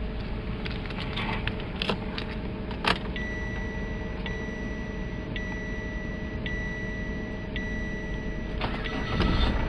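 Car key clicking and jangling, then a sharp click as the key is turned to ignition-on in a 2014 Chevrolet Captiva. A dashboard warning chime follows, beeping about once a second. Near the end the 2.2 VCDi four-cylinder turbodiesel's starter cranks and the engine begins to catch, the sound rising in level.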